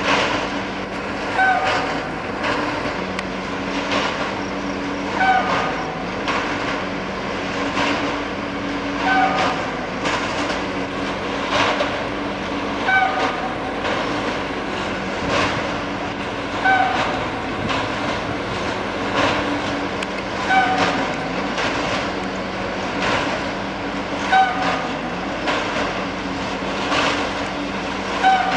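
Railway track tamping machine at work: its engine drones steadily with regular clanks, and a short, strange hooting tone sounds about every four seconds, eight times in all, in step with its working cycle.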